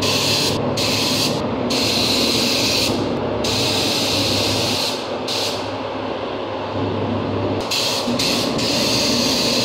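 Gravity-feed compressed-air spray gun hissing in repeated bursts as the trigger is pulled and released while paint is sprayed onto an alloy wheel rim, with a longer pause about six seconds in.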